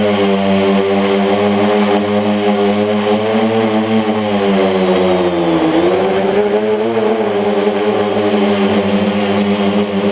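Mini tricopter's electric motors and propellers whining steadily in flight, the pitch sagging about five seconds in and climbing back a second later. One motor shaft is bent, which the uploader blames for the craft's vibration.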